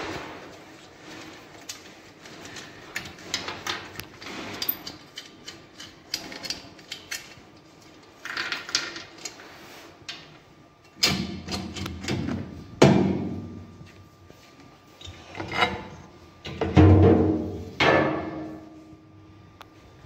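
Irregular knocks, clicks and clatter of parts being handled and fitted on a Hele-Shaw apparatus: knobs turned on the frame, a plastic sheet and a disc model set down on the plate. The heaviest knocks come in the second half.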